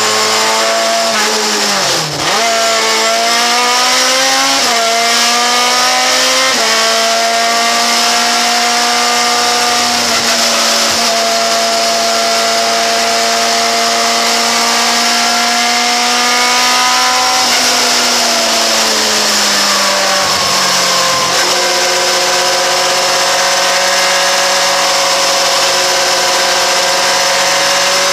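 A 2-litre sports sedan race car's engine heard from on board at racing speed. It revs up through the gears with brief dips at the shifts in the first several seconds, holds a steady high pitch for about ten seconds, then falls away as the car slows, and settles steady again.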